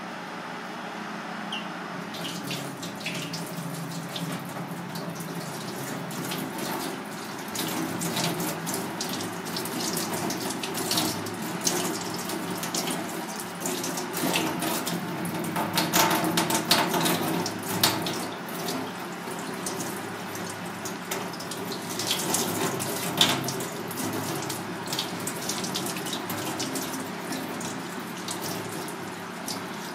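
Kitchen tap running into a stainless steel sink as a sea snake is rinsed by hand under the stream, with splashing as the hands work it. The water starts about two seconds in.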